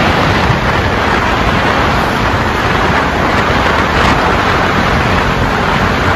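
Steady, loud rushing noise with a low rumble and no distinct events.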